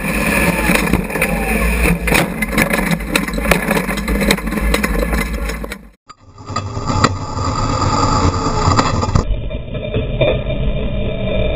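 Jimco Class One off-road race car driving fast over desert dirt, close to the front suspension: engine running, with frequent knocks and clatters. About halfway through the sound cuts out for a moment and resumes duller.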